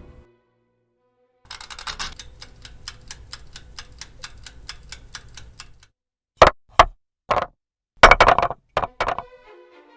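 A rapid run of sharp clicks, about five a second, lasting about four seconds, followed by several louder separate bursts of noise.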